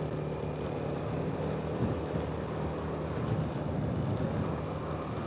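Motorcycle engine running steadily while riding, with road noise.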